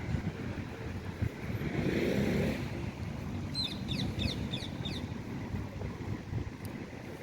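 Waterfront ambience: a steady low rumble, with a passing motor swelling up and fading about two seconds in, then a bird's quick series of about eight short high chirps near the middle.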